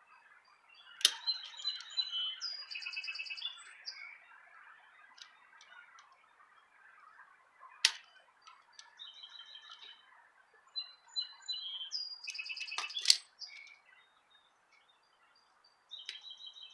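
Small birds chirping in short, rapid trilled phrases, off and on. Three sharp clicks stand out, about a second in, near the middle and about two-thirds through, like small pliers snapping on the bike's wire connectors.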